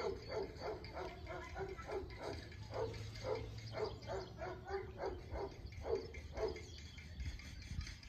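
A dog barking in quick short calls, a few a second, that stop about six and a half seconds in.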